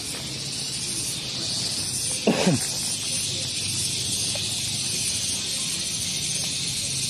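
Steady high-pitched hiss of insects in the roadside vegetation, with one short cry falling sharply in pitch about two seconds in.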